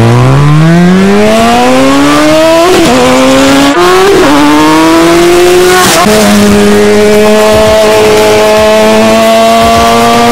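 Sportbike engine, very loud, under hard acceleration from a launch. Its pitch climbs steadily, breaks at gear changes about three, four and six seconds in, then holds a steady note.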